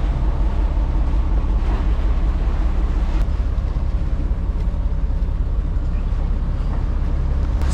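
The 1997 Albin 34 trawler's inboard engine running steadily underway, a constant low drone.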